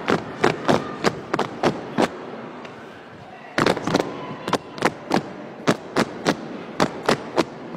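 Drill team clapping and slapping in unison: a rapid, irregular run of sharp, echoing cracks, with a pause of about a second and a half a little before the middle.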